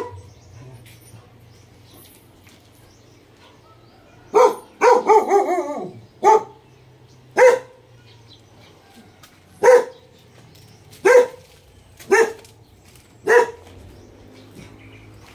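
A dog barking: one bark at the start, then after a pause of about four seconds a quick run of barks sliding down in pitch, followed by single barks about a second or two apart.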